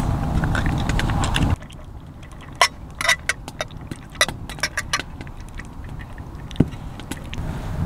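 A steady low rumbling noise that cuts off abruptly about a second and a half in, followed by scattered light clicks and clinks of small hard objects being handled.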